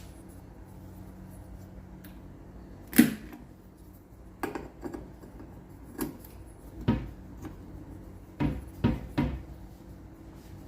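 A series of short mechanical clicks and knocks from a Jackson 103 tube tester's switches and controls being set for a 6J5 triode tube test, about nine in all. The sharpest comes about three seconds in and several follow close together near the end, over a faint steady hum.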